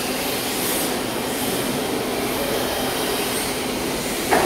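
Electric RC drift cars running and sliding on a smooth track floor: a steady whir and hiss of motors and tyres. Near the end a short, sharp sound drops quickly in pitch.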